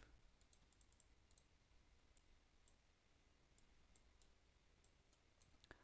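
Near silence with faint, scattered clicks of a computer mouse.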